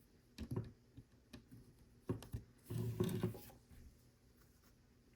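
Small plastic Lego pieces being handled and clicked together: a few short clusters of light clicks and rattles with quiet gaps between them.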